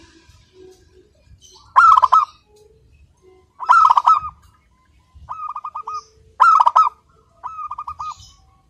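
Zebra dove (perkutut) cooing its song: five short phrases of quick, stuttering coos, louder phrases alternating with softer ones.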